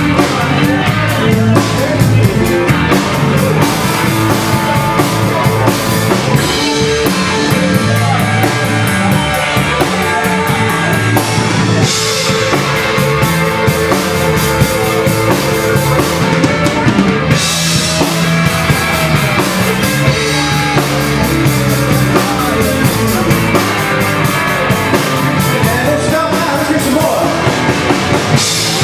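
Live rock band playing loud: electric guitars, bass guitar and a drum kit, with cymbal crashes about twelve and seventeen seconds in and again near the end.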